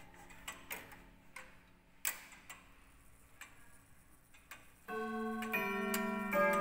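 Antique weight-driven cabinet clock ticking quietly, then about five seconds in its quarter-hour chime starts on the brass gong rods: three ringing notes struck one after another, each left to ring on, far louder than the ticking.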